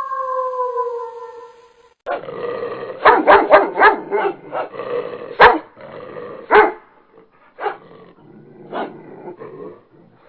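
A dog barking: after a held tone fades out, a quick run of sharp barks starts about two seconds in, then single barks come further apart toward the end.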